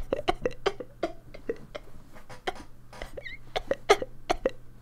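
A man laughing hard in short, irregular bursts.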